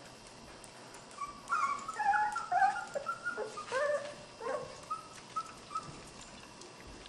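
Border Collie puppy whimpering: a run of short, high, wavering whines and squeals starting about a second in, thinning to a few faint ones near the end.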